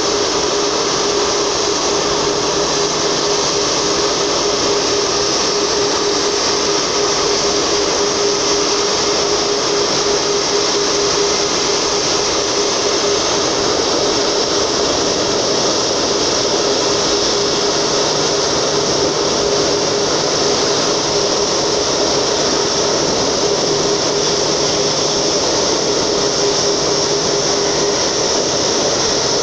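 Airbus A340-600's four Rolls-Royce Trent 500 turbofan engines at taxi power as the jet rolls slowly forward: a steady, loud rush of jet noise with a constant mid-pitched whine.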